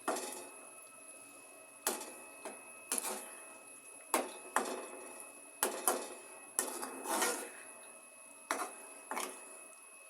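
A spoon stirring and beating raw eggs in a kadhai: irregular clinks and scrapes against the pan, about once or twice a second.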